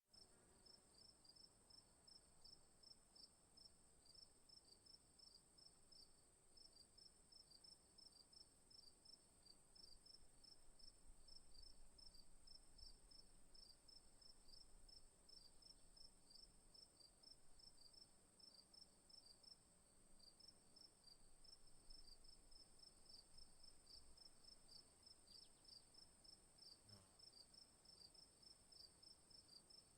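Crickets chirping, faint: a steady high trill with a quick, even run of repeated chirps at a slightly lower pitch.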